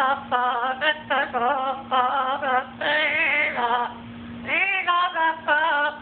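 Blue-fronted Amazon parrot singing a wavering melody in short, quick phrases, with a steady low hum beneath that drops out briefly in the second half.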